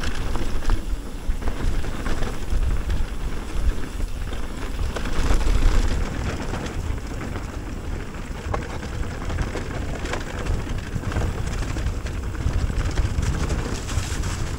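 Mountain bike riding down a dirt trail: a continuous rumble of tyres and rattling bike, with scattered clicks and knocks from the ground, and wind buffeting the action camera's microphone.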